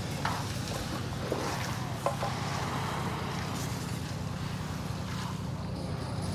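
An engine running steadily with a low drone, with a few light knocks in the first two seconds.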